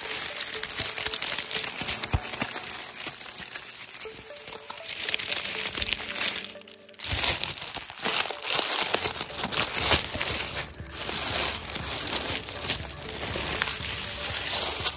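Dry oak leaf litter crunching and rustling, uneven and irregular, with a short lull a little before halfway.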